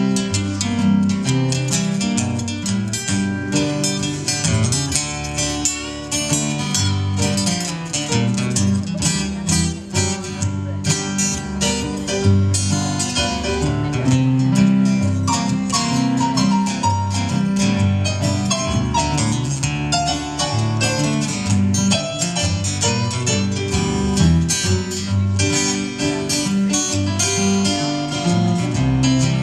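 Live instrumental break of an old blues song played on two acoustic guitars, strummed and picked.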